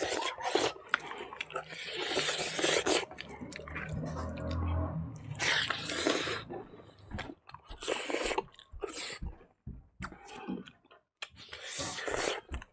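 Close-miked chewing and mouth smacking of rice with dal and potato fry, in irregular bursts with short pauses between mouthfuls.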